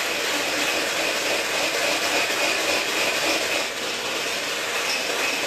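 Electric hand mixer running steadily as it whips cream, with a faint high whine over its motor noise.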